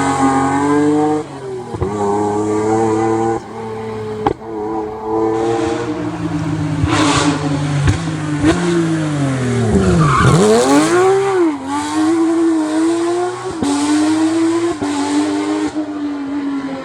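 Rally car engines revving hard and changing gear at stage speed, several cars in quick succession. About ten seconds in, one car's engine pitch drops steeply and climbs again as it passes.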